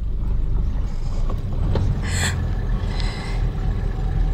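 Steady low rumble of vehicle engine and road noise heard from inside a moving car in traffic, with a brief higher noise about two seconds in.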